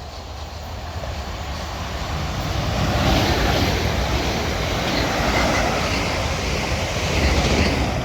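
A pair of coupled Class 450 Desiro electric multiple units passing through the station at speed without stopping: wheel and rail noise that builds over the first three seconds and then stays loud.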